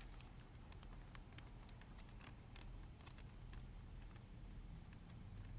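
Faint, irregular ticks and scratches of a pen writing by hand, over a low steady hum.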